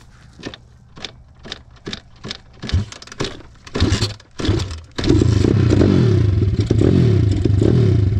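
SSR 170TX pit bike's single-cylinder engine being started: a series of short cranking and sputtering bursts, growing louder, before it catches about five seconds in. It then runs, revving up and down.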